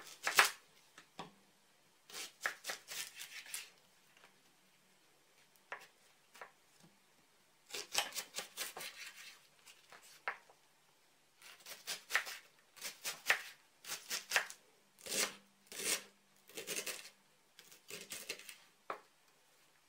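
Kitchen knife slicing a leek into half-slices on a wooden cutting board: several runs of quick cuts, the blade tapping the board with each stroke, with short pauses between the runs.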